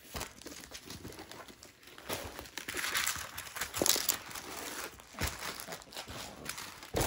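Plastic wrapping crinkling and rustling as a rolled diamond painting canvas is handled and unrolled, loudest midway, with a few sharp knocks.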